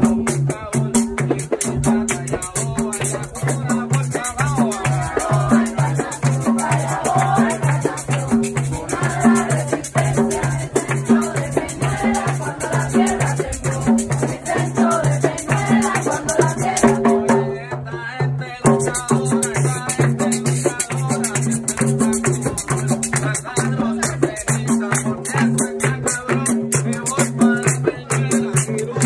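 Live hand-percussion music: a shaken rattle and drums keep a steady, driving beat, with group singing over it.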